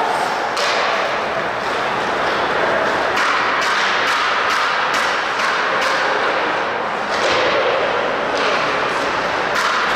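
Ice hockey game sounds in a rink: repeated sharp clacks of sticks and puck, irregularly spaced, over a steady noisy rink background with faint voices.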